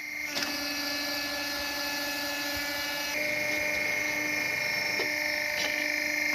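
A motor-driven machine running steadily with a high whine, getting a little louder about three seconds in.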